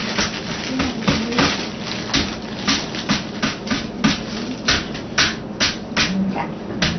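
Cooked noodles being shaken dry in a plastic colander to drain off rinse water: a rhythmic shaking sound, about two strokes a second.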